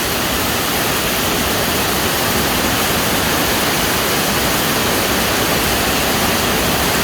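Heavy tropical-storm rain pouring with wind, a loud, steady rushing that does not let up.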